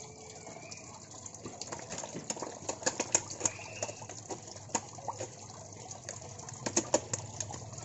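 Koi feeding at the water surface around a hand: a rapid, irregular scatter of sharp wet smacks and splashes as they gulp food pellets. Under it runs the steady splash of water pouring into the pond.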